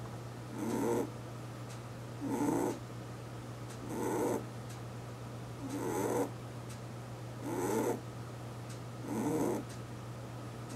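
Pet rabbit snoring in its sleep: six short, even snores, about one every second and a half to two seconds, over a steady low hum.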